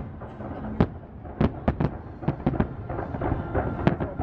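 Aerial firework shells bursting in a rapid, irregular series of sharp bangs, about ten in four seconds, over a low rumble.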